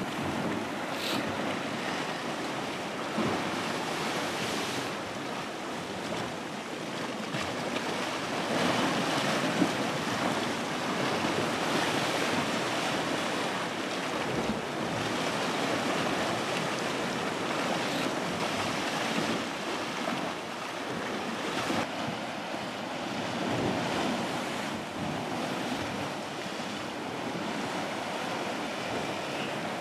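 Sea surf washing and breaking against the rock ledges at the foot of sea cliffs, swelling and easing in waves.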